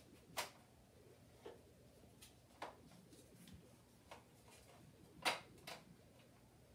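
Sharp plastic clicks and knocks from a Nerf SP-L blaster as its silencer attachment is fitted to the muzzle: six separate clicks spread out over several seconds, the loudest about five seconds in, with another close after it.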